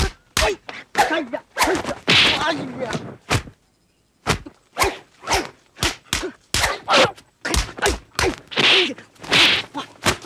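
Staged kung-fu fight sound effects: a rapid run of punch and kick impacts and whip-like swishes, about two to three a second, with fighters' shouts and grunts among them. The sound drops out briefly about three and a half seconds in.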